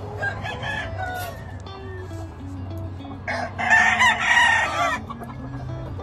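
Rooster crowing once, loud, for under two seconds a little past the middle, with shorter, softer calls near the start.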